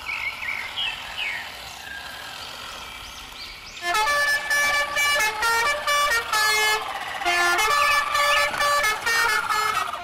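A vehicle horn honking in a run of loud short blasts that starts about four seconds in. Before that there is a quieter stretch with a few faint chirping glides.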